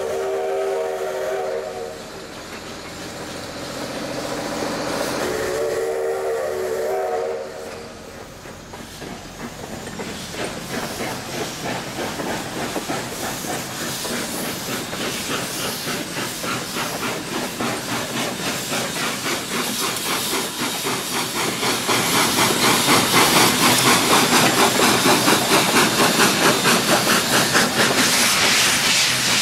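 Steam locomotive whistle blown twice, then the locomotive's exhaust chuffing as it starts away, the beats coming quicker and louder as it gains speed.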